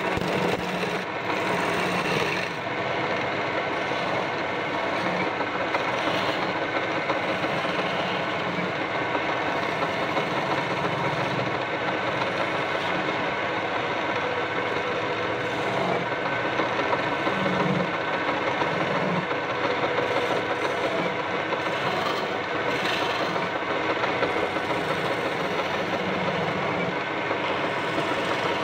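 Wood lathe running while a hand-held turning chisel cuts a spinning wooden spindle: a steady scraping of the tool on the wood over the lathe motor's hum.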